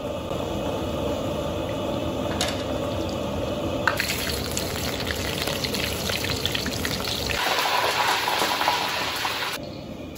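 Breaded chicken drumsticks deep-frying in oil in a wok at medium heat, the oil sizzling and bubbling steadily. About four seconds in the sizzle turns louder and more crackly, and it drops away near the end.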